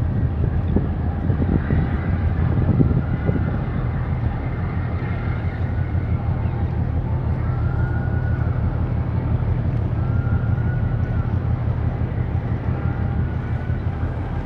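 Steady low rumble of a large ship's diesel engines, with wind buffeting the microphone in the first few seconds. A faint tone that rises and falls repeats about every two and a half seconds in the second half.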